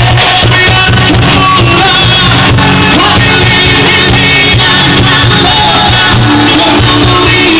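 Live band playing a song: a woman sings the lead loudly, with acoustic guitar, a second woman's backing vocal and hand-drum percussion.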